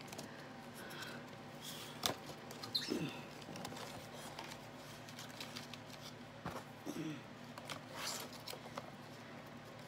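Flat basket reed being woven in and out around the basket's spokes by hand: faint rustling and scraping with a scatter of light clicks as the reed and clothespin clips knock against the spokes.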